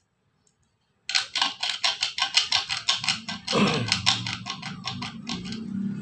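Vibrating contact breaker (platina) of a homemade 24 V electrofishing inverter, starting about a second in as a rapid, uneven clicking chatter, with a lower buzz joining midway. The points are not vibrating cleanly: the owner finds crusted dirt on them that hinders the breaker's vibration.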